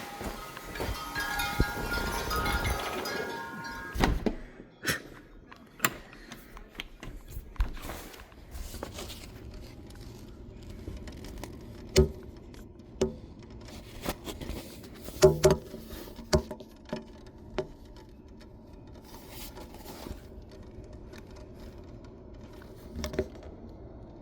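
Wind chimes ringing in a strong wind, stopping abruptly about four seconds in. After that comes a quieter stretch of scattered, irregular sharp taps, likely raindrops, over a low steady hum.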